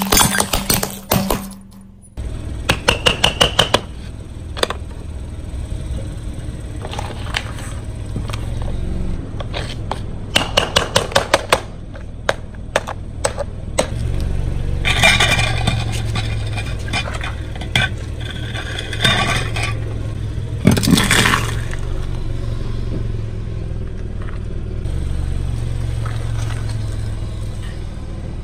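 A car's engine running at low speed under clusters of sharp crackles and crunches as its tyre rolls over and crushes objects, with the loudest crunching bursts about halfway through and about three-quarters of the way in.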